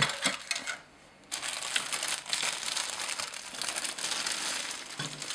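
Plastic bag of model-kit parts crinkling as it is handled. It starts with a sharp click, pauses briefly about a second in, then crackles on steadily.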